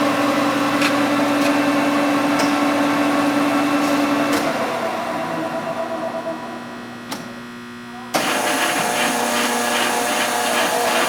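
LeBlond servo shift lathe running under power, with a steady gear whine from the headstock and power feed. About 4.5 s in the sound falls away as the spindle runs down during a speed change. About 8 s in it comes back suddenly with a higher whine, the spindle now running at about 900 RPM.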